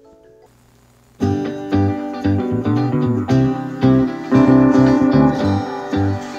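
A faint short run of steady tones, then about a second in, loud music with plucked guitar and a heavy bass line starts. It is played over Bluetooth through a Tewell T-615S 2.1 soundbar and its subwoofer as a sound test.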